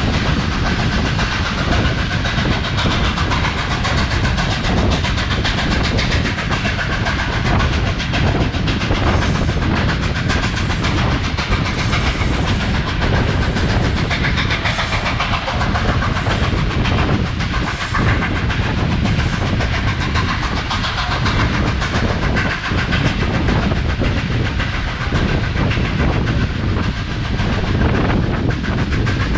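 Steam-hauled passenger train behind C38-class Pacific locomotive 3801 running along the line: a steady, loud rumble of wheels on rails, with steam from the locomotive.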